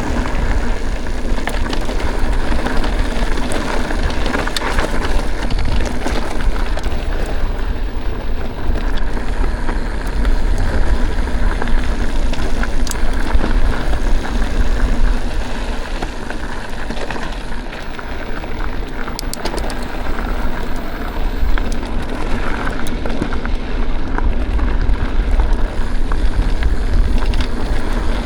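Mountain bike riding over a loose, rocky trail: tyres crunching over gravel and stones, the bike rattling, scattered short clicks, and a steady low wind rumble on the microphone.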